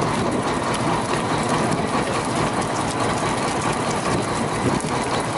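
Fishing boat's engine running steadily, with a constant scatter of small clicks from a deck heap of freshly caught fish flapping.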